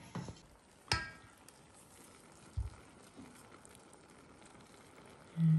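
Cold sugar syrup spooned onto hot baklava, making a faint steady sizzle. A metal spoon clinks against the steel pot about a second in, with a couple of soft knocks, and a short low hum near the end.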